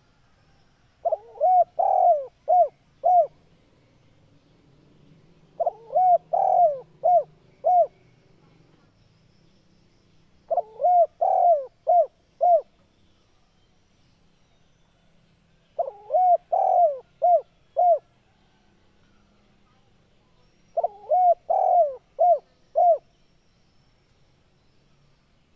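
Male spotted dove cooing: five phrases about five seconds apart, each a quick run of about five coos.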